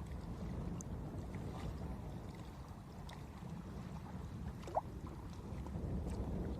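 Steady low rumble of wind on the microphone beside open water, with faint scattered clicks and one short rising squeak nearly five seconds in.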